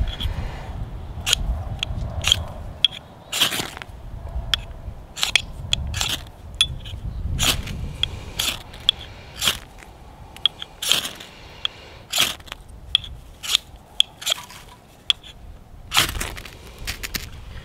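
A ferro rod being scraped again and again to throw sparks onto a dry grass tinder bundle: more than twenty sharp, rasping strikes at an irregular pace, roughly one or two a second, the loudest near the end.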